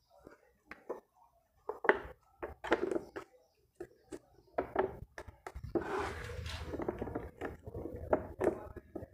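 Hands closing a small wooden stingless-bee hive box: knocks, taps and scrapes as the clear inner cover is set over the brood chamber and pressed down. From about halfway, a continuous rough rubbing and handling noise runs under further knocks.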